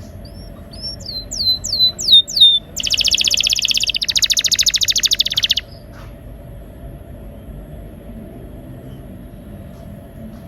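Domestic canary singing: a run of about six quick falling whistled notes, then a fast rolling trill that stops abruptly about halfway through, leaving only a faint steady hum.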